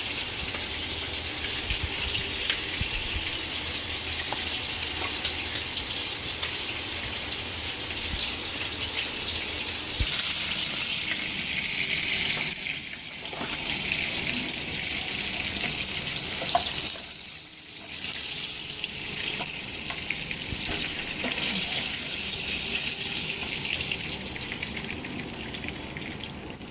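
Food frying in a pan, a steady sizzling hiss that drops out briefly twice in the second half.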